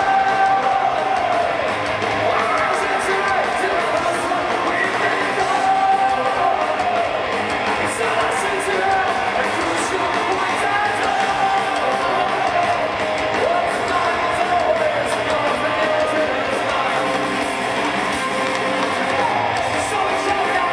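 Live band playing loud amplified music, with a lead vocalist singing over guitars and drums, heard from within the concert crowd.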